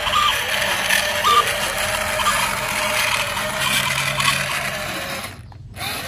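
Small electric motor and plastic gears of a toy RC vehicle whirring steadily, briefly cutting out near the end.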